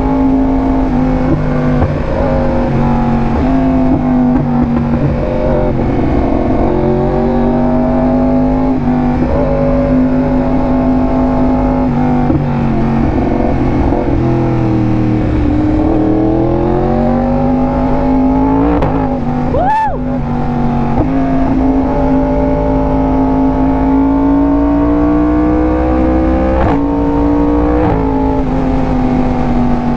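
Yamaha R1M's crossplane inline-four running hard through an SC Project exhaust while ridden, its pitch rising and falling as the throttle is opened and eased. About twenty seconds in, the note dips briefly with a sharp click.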